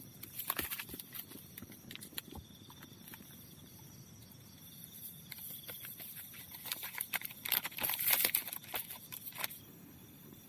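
Bursts of crisp rustling and small clicks, as of things being handled, loudest from about seven to nine and a half seconds in, over a faint steady high-pitched tone.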